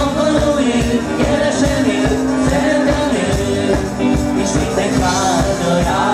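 Live rock-pop band playing loudly: a drum kit keeping a steady beat under electric guitar and keyboards.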